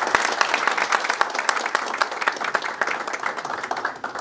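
Small audience applauding: dense, irregular hand claps that thin out and fade near the end.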